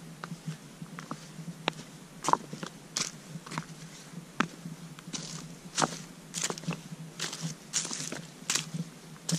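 A hiker's footsteps on a rocky trail covered in dry fallen leaves, crunching and crackling in an irregular stride of about one and a half steps a second.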